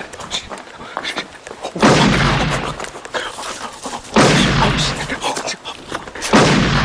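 Three loud gunshot blasts about two seconds apart, each a sudden deep bang that dies away over about a second, with faint small clicks in between.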